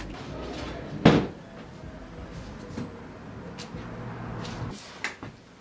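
A single loud knock about a second in, followed by a few faint clicks over a low steady hum that stops near the end.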